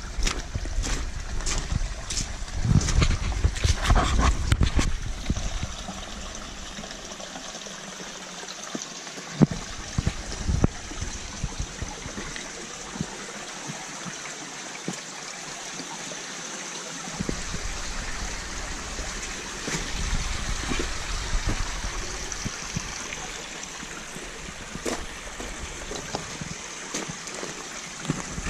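Water trickling steadily, with scattered clicks and knocks and stretches of low rumble.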